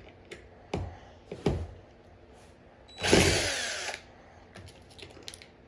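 DeWalt drill run in one short burst of about a second, driving in a screw, preceded by two light knocks.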